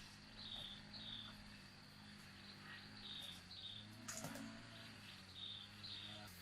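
Faint chirping: short high notes, mostly in pairs, repeating about every second, over a low steady hum, with a soft knock about four seconds in.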